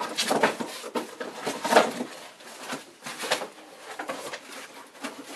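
Cardboard box being pulled up and handled: rustling and scraping of cardboard flaps in several short bursts.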